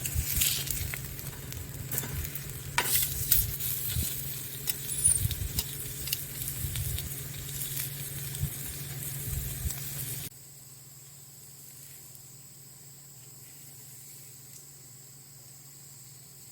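Crackling and sizzling over a wood fire, with many sharp pops, of the kind damp firewood makes as it gives off water and smoke. It cuts off abruptly about ten seconds in, leaving only a faint steady background.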